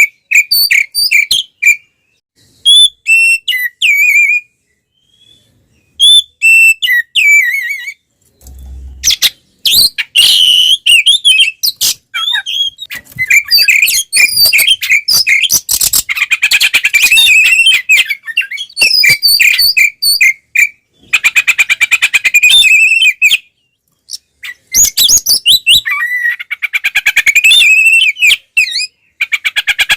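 Oriental magpie-robin (kacer) in loud, full fighting song. Short whistled phrases with pauses come first, then from about ten seconds in long runs of rapid chattering notes, broken briefly once near the end.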